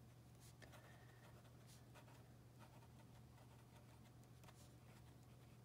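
Faint scratching of a metal pen nib writing on paper in a few short strokes, over a low steady hum.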